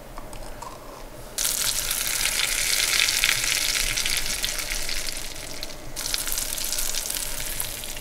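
Baking soda and vinegar fizzing over ice. A fine, crackling hiss like sizzling starts abruptly about a second and a half in and eases slightly near the end. Before that there are a few faint ticks.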